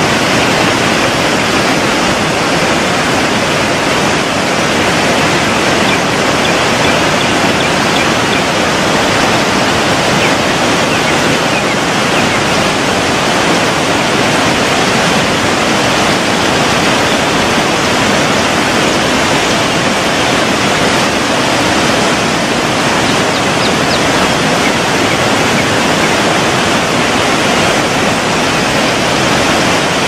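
Steady rush of a waterfall and its cascading stream, a loud, even noise that does not change.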